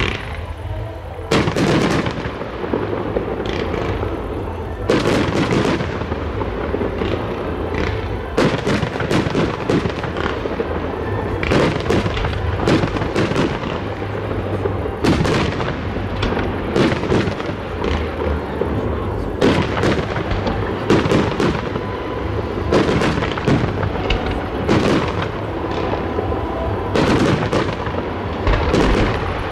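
Aerial firework shells bursting in quick succession, a steady run of sharp booms from about a second in, often one or two a second.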